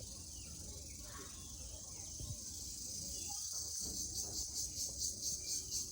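Crickets (jhijhi poka) chirring in a continuous high trill that, about two-thirds of the way through, turns into an even pulsing chirp of roughly four pulses a second.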